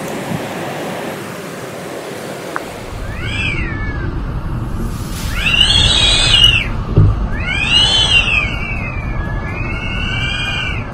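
Typhoon wind: a steady rush at first, then a lower rush of wind and rain. Over it come several high, wailing tones that each rise and fall over about a second.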